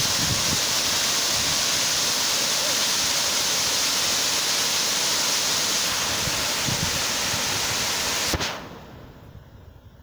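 Large multi-tiered waterfall rushing: a loud, steady hiss of falling water. It cuts off suddenly with a click about eight seconds in, leaving a much quieter background hiss.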